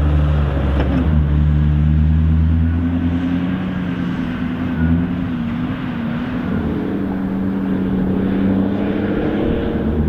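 Heavy diesel engines of an excavator and a Hydrema 922C articulated dumper running under load, the engine note shifting up and down several times as the machines work and the dumper drives off.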